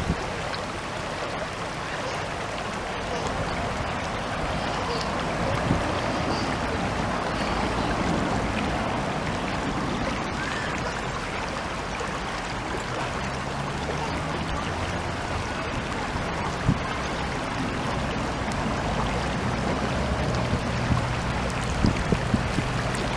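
Spring-fed mountain stream flowing: a steady, continuous rush of running water.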